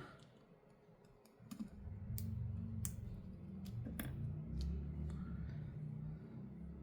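Small repair tools clicking and tapping against the internal parts of a Samsung Galaxy S23 Ultra while an antenna is taken out: a few irregular sharp clicks over a faint low rumble, starting about a second and a half in.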